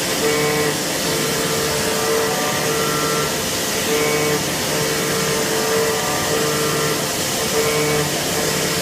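CNC machine running, machining a core box mould: a steady rushing noise with a mid-pitched hum and fainter higher tones that come and go in short spells about once a second.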